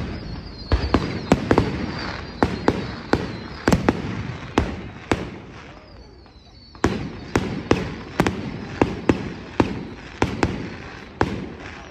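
Fireworks display: a rapid volley of sharp bangs with crackling between them, a short lull about halfway, then a second volley of bangs.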